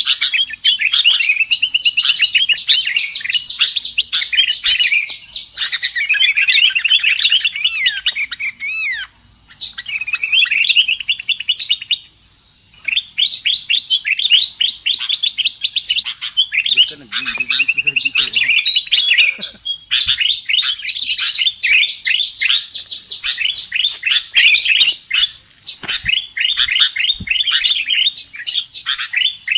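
Sooty-headed bulbul (kutilang) lure calls: dense, rapid, chattering chirps and whistled phrases going almost without pause, broken only twice briefly in the first half.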